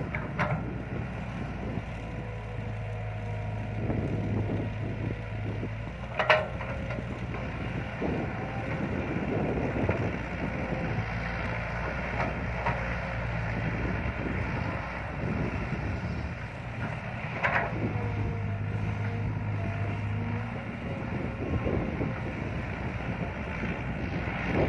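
Caterpillar 312B hydraulic excavator's diesel engine running, its note swelling in three spells of a few seconds each as it works the boom and swing under load. Two sharp clanks stand out, about eleven seconds apart.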